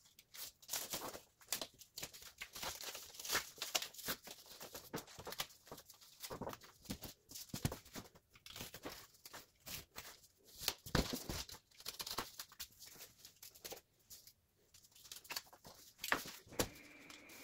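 Utility knife slicing through cardboard backing, with cardboard offcuts being pulled away and moved about: a run of short, irregular scraping and tearing strokes.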